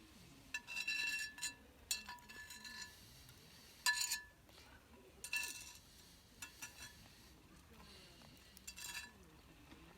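Utensils clinking and scraping against cookware during a meal: about five separate clinks, each with a short ring, the loudest about four seconds in.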